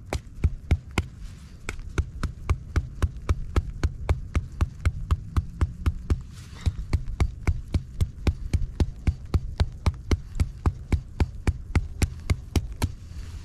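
A hammer driving a homemade tent stake into the ground, with steady repeated blows at about three a second.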